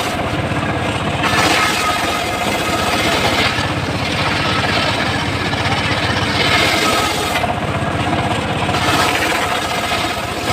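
Homemade engine-driven circular sawmill running, its blade cutting teak in loud hissing stretches that swell and fade about three times over the steady drone of the engine.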